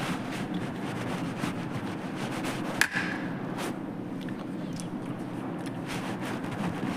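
Scattered light clicks and knocks of kitchenware being handled, with one sharper knock about three seconds in, over a steady low background hum.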